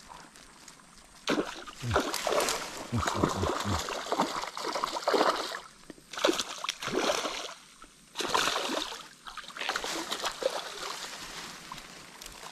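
A hooked fish splashing and thrashing at the water's surface as it is played on a rod, in repeated irregular bursts with short lulls between them.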